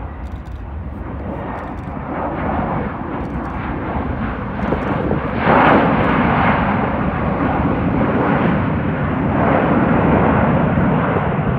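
Boeing 737 jet engines on the landing rollout: a loud rushing roar that builds, surging about halfway through and swelling again near the end.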